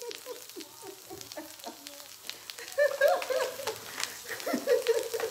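Butter sizzling and crackling in a hot skillet. A wordless voice rises over it, loudest about three seconds in.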